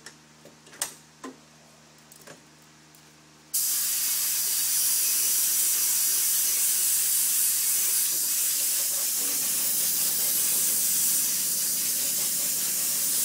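Compressed-air spray gun hissing steadily as it sprays rinse water over a freshly spray-chromed fender, the water stage of the chrome process. The spray starts suddenly about three and a half seconds in, after a few light clicks.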